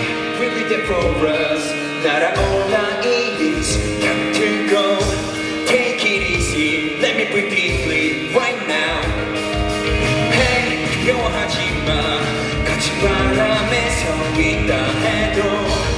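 Live pop-rock band playing loudly on a concert stage, with drums and singing.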